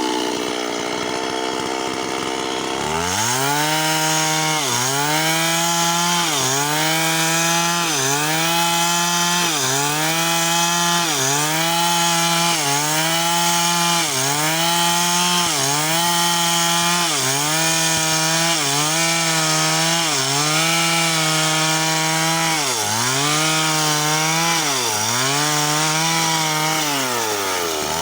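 Two-stroke chainsaw cutting apricot wood. The engine runs at high speed, and its pitch dips and recovers about once every second and a quarter as the cut loads it, over roughly twenty strokes.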